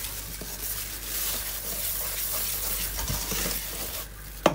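Wire whisk stirring dry flour and powdered sugar in a stainless steel bowl: a steady soft swishing hiss, with a sharp knock near the end.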